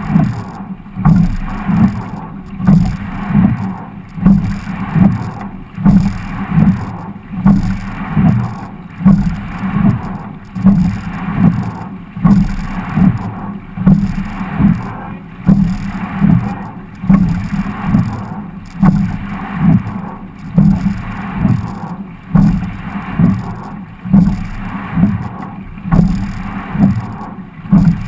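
Quadruple sculling boat rowed at a steady rating: a knock and surge about every one and a half seconds as the oars work in their oarlocks, over the water running along the hull.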